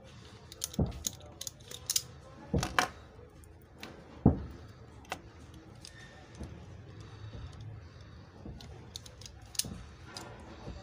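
Automatic self-adjusting wire stripper clicking and snapping as its spring-loaded jaws grip and strip insulation off stranded wire. Sharp clicks come in a quick run in the first half, the loudest about four seconds in, with a few more near the end.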